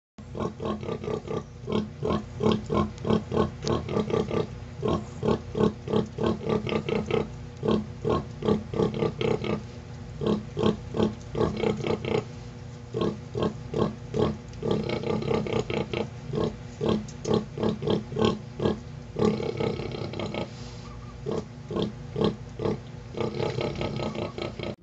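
Nursing sow grunting in a long, rhythmic series, about three short grunts a second with a few brief pauses: the nursing grunts that call piglets to suckle.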